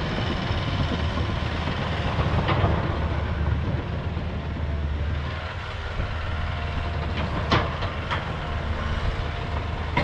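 Crawler dozer's diesel engine running steadily as it moves and pushes brush, with a few sharp knocks, the loudest about seven and a half seconds in.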